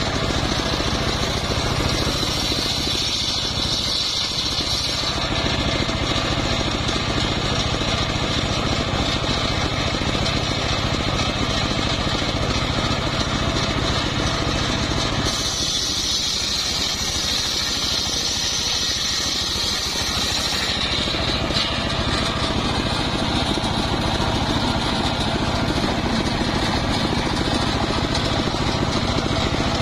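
Homemade bench circular saw running steadily with its motor and spinning blade, ripping trembesi (rain tree) slabs lengthwise. The cutting sound grows sharper and higher twice, about two seconds in and again from about fifteen to twenty seconds in.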